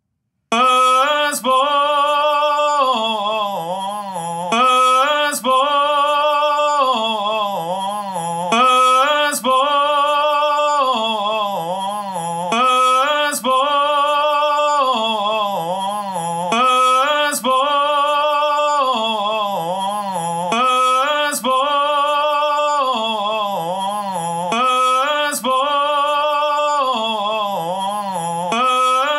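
A recorded singing voice, captured through a computer's built-in microphone, played back on a loop: the same short sung phrase, with a wavering vibrato, repeats about every four seconds. It is the vocal track being played through a compressor while its settings are adjusted.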